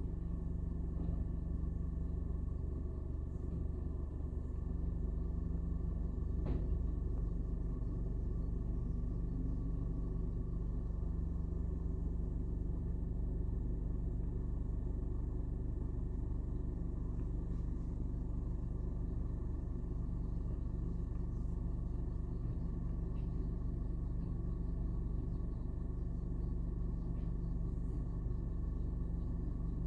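Steady low rumble of an idling vehicle engine, with a brief click about six and a half seconds in.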